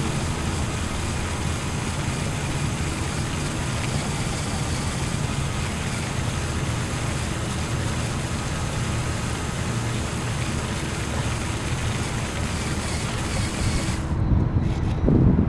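LEGO Technic RC car running: two Power Functions L-motors and their plastic gear train whining steadily while the wheels rattle over brick pavers, heard from a camera mounted on the car. Near the end the high hiss cuts out and a louder low thump follows as the car reaches the rocks and dirt.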